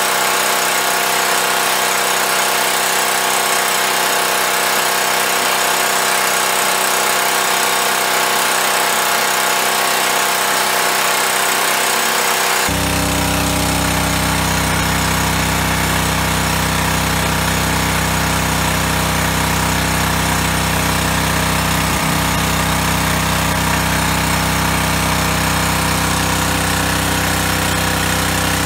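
Power Fist 1-inch gas water transfer pump's small engine running steadily at full speed while pumping water through the hose. About 13 seconds in, the sound suddenly becomes fuller and deeper.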